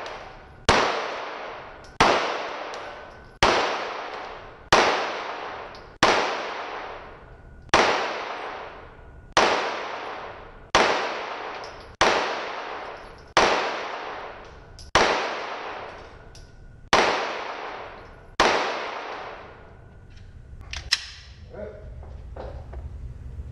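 Semi-automatic pistol fired in slow, evenly paced shots, about thirteen, roughly one every second and a half, each with a long echoing tail from the indoor range. The shooting stops near the end, leaving a small click and a low rumble.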